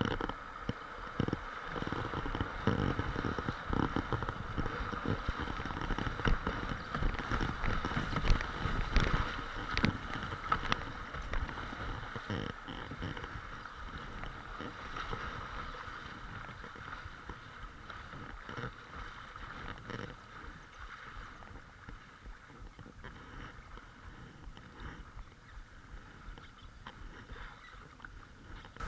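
Kayak running a shallow grade 1 river rapid: rushing broken water around the hull with repeated paddle splashes and knocks, growing quieter in the second half as the water calms.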